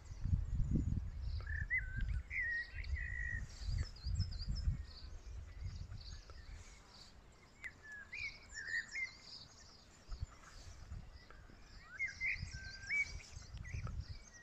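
Small songbirds singing: repeated short warbling phrases with quick rising and falling notes, and higher twittering over them. Underneath is a gusty low rumble of wind on the microphone, heaviest in the first few seconds.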